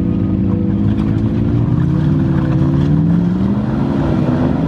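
Jeep engine running off-road, its pitch rising and falling several times as the throttle is worked.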